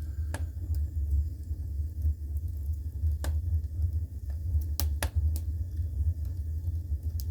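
Wood fire burning in the firebox of an add-on wood furnace: a steady low rumble from the draft, with a few sharp crackles and pops from the burning wood.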